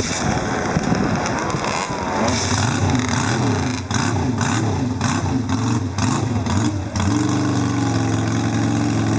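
Classic Moto Morini racing motorcycle engine being revved in a run of quick throttle blips, its pitch rising and falling about every half second. About seven seconds in it settles to a steady idle.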